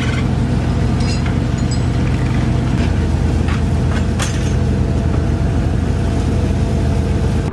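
Fishing boat's engine running steadily with a low, even hum, with a few sharp knocks and clicks from the gear on deck.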